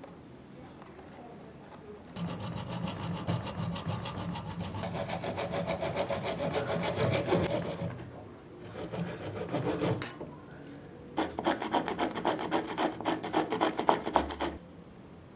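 Rapid back-and-forth scraping strokes of a hand tool rasping at a workpiece. They come in three spells: a long one starting about two seconds in, a short one, then another that stops abruptly near the end.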